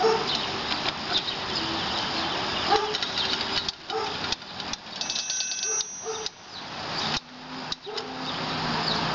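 Antique mechanical spit roast being wound by its hand crank: the crank turning the gear train inside the box, with a dense run of clicks and rattles that breaks off briefly a few times.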